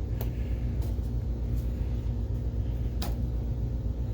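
Optoma HD26 DLP projector powering up and running with a low, steady hum from its cooling fan and new color wheel, a lot quieter than a worn wheel. Four sharp clicks come through, the loudest about three seconds in.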